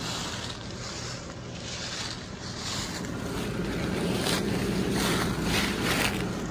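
Blower fan of an inflated Gemmy airblown inflatable running steadily: a low hum under an even rush of air, with a few brief rustles in the second half.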